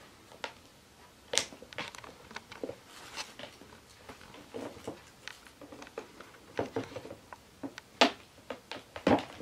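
Clear plastic case knocking and scraping on a wooden floor as a cat pushes her head and paws into it, with irregular light clicks and knocks. The sharpest knock comes about eight seconds in, and another cluster follows about a second later.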